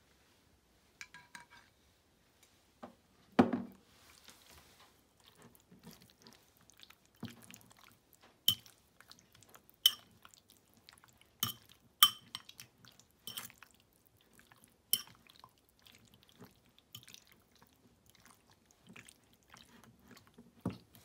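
Metal fork mixing raw chicken pieces in sauce in a ceramic bowl: soft wet squishing, broken by sharp clinks of the fork against the bowl about every second or so. A single heavier thump comes about three and a half seconds in.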